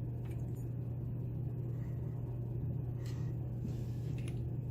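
Steady low hum with a few faint, brief metallic scrapes and ticks: a shim being worked into a padlock held in a vise to push its plug out.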